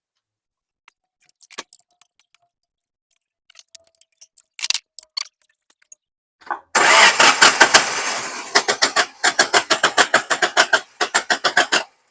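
Faint clicks and knocks, then, about seven seconds in, a car engine is started on its starter and runs in rough, strong pulses about six a second before cutting off near the end. This is a misfiring engine being tested with a spark plug lead pulled.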